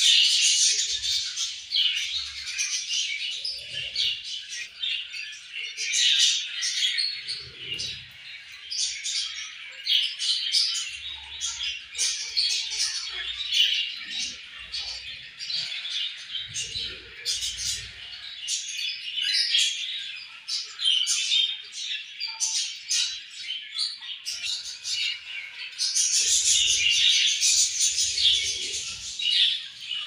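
A flock of budgerigars chattering: many birds warbling and chirping at once in a continuous busy stream of short calls, swelling louder near the start and again near the end.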